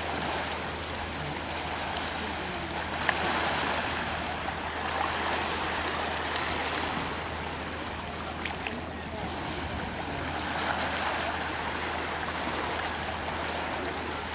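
Small sea waves lapping and washing over a shallow rocky shore, swelling and easing every few seconds, with a few brief knocks.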